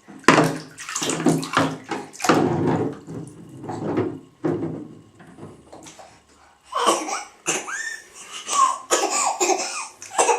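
Bath water splashing and sloshing in a series of bursts, then a toddler making short, high, gliding squeaky vocal noises in the second half, in imitation of a squeezed bath toy.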